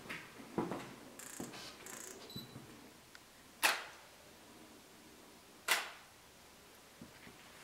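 A few soft footsteps on a hard floor, then two sharp clicks about two seconds apart, with a short ring after each.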